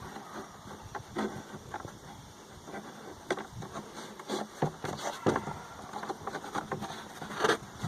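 Handling noises from fitting a rubber gasket into the lid of an S&B cold air intake: irregular small clicks, rubs and rustles, with a louder knock near the end.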